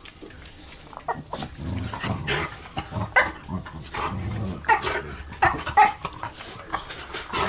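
Dogs growling and whining at each other, with short sharper yips, starting about a second in.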